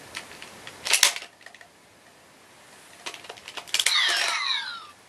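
Engine Blade toy sword being worked by hand: a sharp plastic click about a second in and a few lighter clicks, then a clack as its top section flips open, followed by a short electronic sound effect that falls in pitch.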